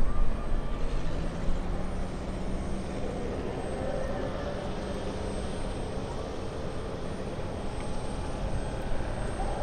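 A single-engine high-wing light plane's engine drones steadily at a distance over a constant outdoor rumble as the plane makes a low pass along the runway.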